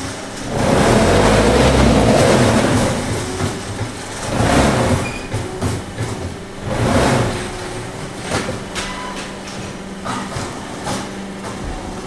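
Pan concrete mixers of a brick-making line running, their paddles churning dry concrete mix: a steady mechanical running noise with three louder surges in the first half and scattered sharp clicks later.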